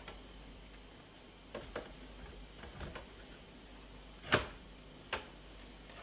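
Scattered clicks and knocks of hard plastic parts being handled and fitted together while a monitor is assembled; a few light ones, then the loudest knock a little past the middle and one more shortly after.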